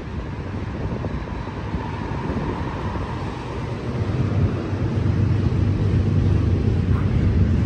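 Autorack freight cars rolling past on the track: a steady low rumble of steel wheels on rail that grows louder about halfway through.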